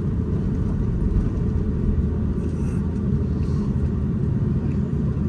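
Steady low rumble of an Airbus A350-941's cabin on the ground after landing: engines and airframe heard from inside the passenger cabin.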